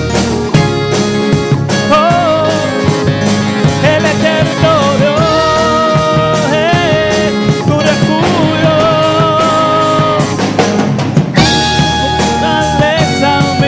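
Live Christian worship band playing: a drum kit keeps a steady beat under keyboard and guitar chords, with a wavering lead melody line above.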